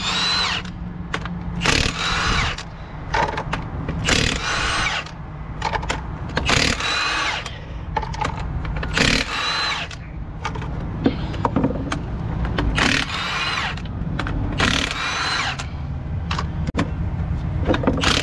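Impact wrench running in short bursts, about seven times, each with a rising whine, on the 24 mm half-shaft bolts of a DAF truck's drive-axle hub. A steady low engine hum runs underneath.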